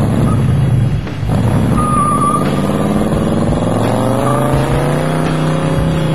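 Truck engine running, its pitch climbing as it revs for a couple of seconds before it levels off.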